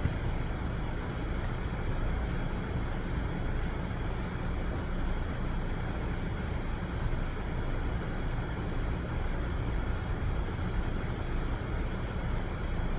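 Steady background noise with a low rumble, even in level throughout, and no speech.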